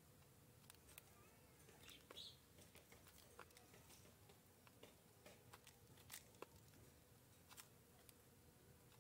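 Faint, irregular sharp clicks of a dove pecking seed from a plastic tub, with a couple of faint high bird chirps about two seconds in.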